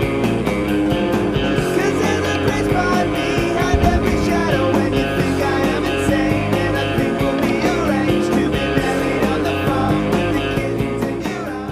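Rock intro music with electric guitar and a steady beat, fading out at the end.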